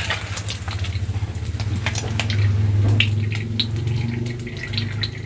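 Hot cooking oil crackling and sizzling in a wok as a fried egg omelette is held above it on a perforated skimmer, oil dripping back into the pan in quick irregular crackles, over a steady low hum.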